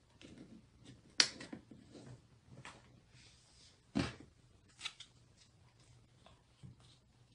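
Sharp plastic clicks and light knocks from handling the hot glue gun's trigger and feed mechanism while its small spring is being fitted. The loudest click comes about a second in and another near four seconds, with softer clicks and fumbling between.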